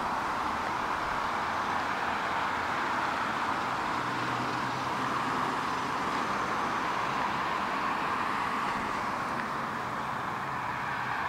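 Steady road traffic: cars passing on a multi-lane road, a continuous rush of tyre noise.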